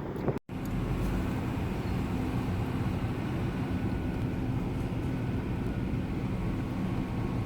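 Steady engine and road drone of a car being driven, heard from inside the cabin, after a brief moment of total silence near the start.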